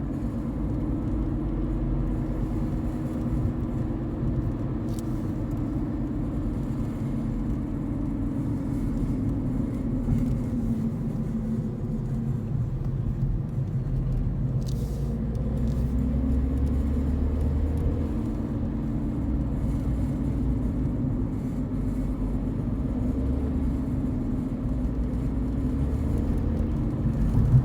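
Volkswagen Cross Polo (6R) being driven, its worn front hub bearings giving a steady low drone over the road rumble; the drone sinks in pitch about halfway through and then rises again. The drone is the sign of failing front hub bearings on both sides.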